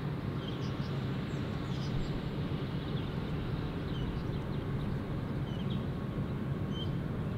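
Outdoor ambience: a steady low rumble with short, high bird chirps scattered through it every second or so.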